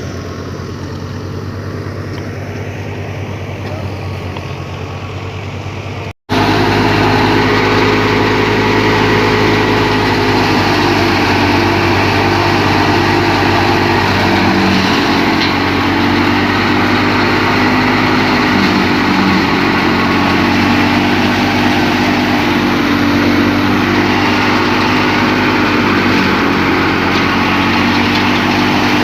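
Wheat thresher and its driving tractor engine running steadily. There is a brief cut about six seconds in, after which it is louder.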